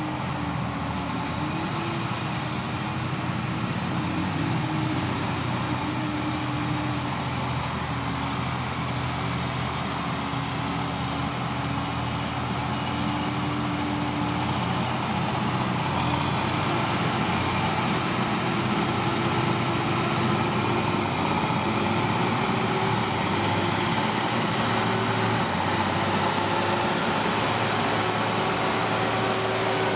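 Krone Big X 770 self-propelled forage harvester chopping silage maize, with a tractor pulling the trailer alongside: a steady machine drone with a wavering hum, growing slightly louder as the machines draw nearer.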